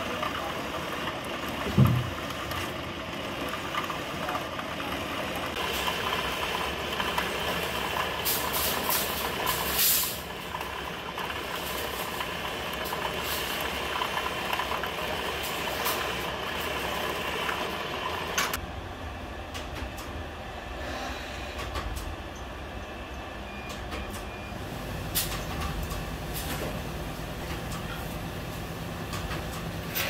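Electric buffing machine running steadily while a metal door handle is pressed against its polishing wheel, with one sharp knock about two seconds in. About two-thirds of the way through, the sound turns duller and lower.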